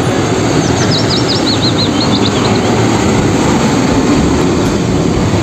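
Hino tank truck driving by on a road: steady engine and road noise. A quick run of high chirps sounds about a second in.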